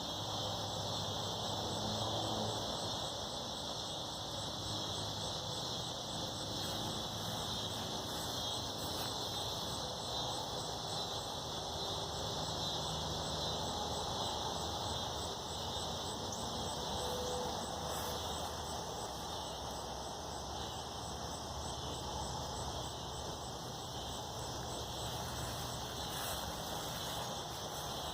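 Male cicadas calling with their tymbals: a steady, high-pitched buzzing drone.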